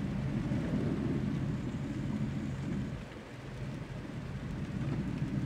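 Ford Explorer driving through standing rainwater on a flooded street, heard from inside the cabin: a steady low rumble of the engine and of the tyres in the water, with rain on the vehicle. The rumble eases slightly about three seconds in.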